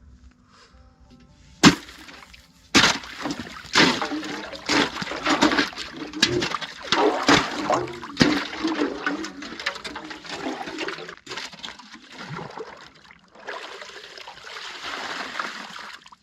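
Water splashing and gurgling, with a sharp knock just before it starts. The gurgling is loudest through the first half and eases to a softer rush near the end.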